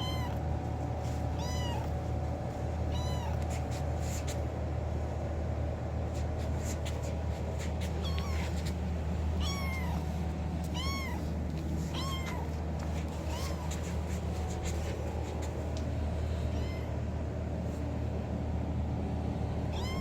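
Kitten meowing again and again to get attention, short high meows that rise and fall, about one every second and a half, over a steady low hum.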